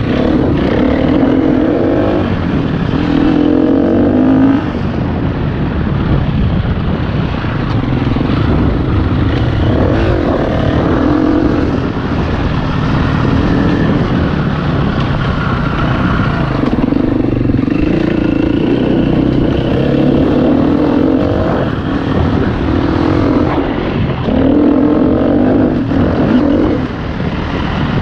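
Enduro dirt bike engine being ridden hard, its note rising and falling again and again as the rider opens the throttle and changes gear, over a steady rush of wind on a helmet-mounted microphone.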